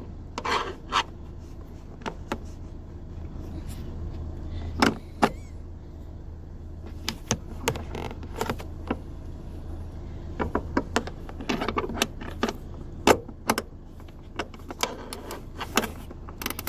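Irregular sharp metallic clicks and clinks of hand tools working on a car's boot strut fixings, some in quick clusters, over a steady low hum.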